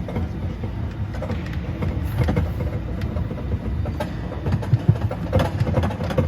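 Mall kiddie train ride running, a steady low rumble with scattered rattling knocks, the loudest about five seconds in; the cars rattle as if they might come apart.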